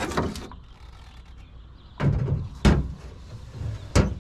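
Knocks and clunks of hard objects being handled: a clunk about two seconds in, then two sharp knocks, the last and loudest near the end.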